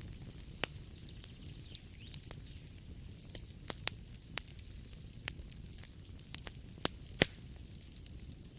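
Wood fire crackling in a fireplace: sharp, irregular pops over a low steady rumble, the loudest pop about seven seconds in.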